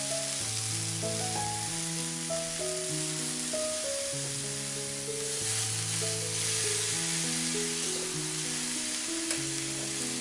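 Eggplant slices sizzling steadily on the hot ridged plate of an electric contact grill, the sizzle growing a little stronger about halfway through. Background music of slow held notes and chords plays underneath.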